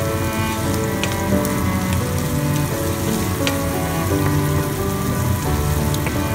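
Shrimp, onion and garlic sizzling in oil in a frying pan while being stirred with a wooden spatula, with a few light clicks. Background music with a melody of held notes plays over the sizzle.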